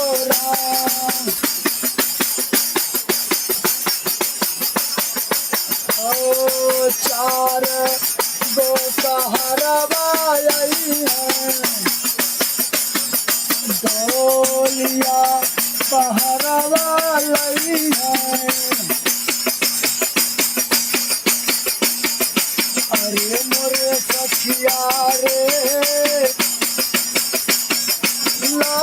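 A singer performing a song in melodic phrases that come and go, over a fast, steady jingling beat of hand percussion like a tambourine, with a low held tone under much of it.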